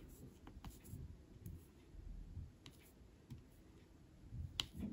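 Faint, scattered clicks and taps of a diamond painting drill pen setting drills onto the sticky canvas, the loudest click near the end.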